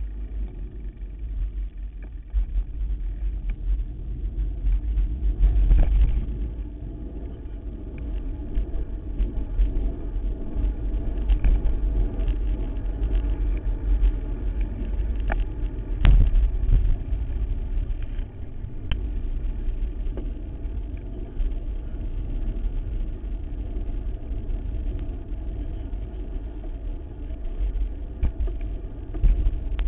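Steady wind rumble on the microphone of a bicycle-mounted camera while riding, mixed with tyre noise on pavement, with a couple of sharp knocks about six and sixteen seconds in.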